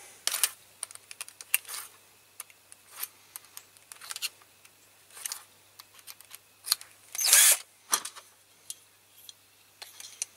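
Scattered small clicks and taps of a drill bit, a drill and a diecast toy tractor being handled over a foil-covered metal tray, with one brief louder burst of noise about seven seconds in.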